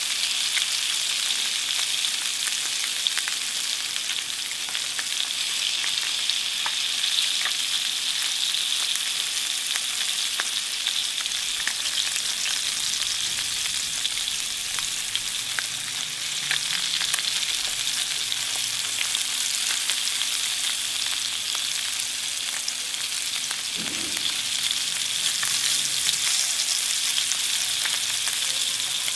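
Two kingfish fillets frying skin-side down in oil in a stainless steel pan: a steady sizzle with many fine crackles, as the skin crisps over slow to medium heat.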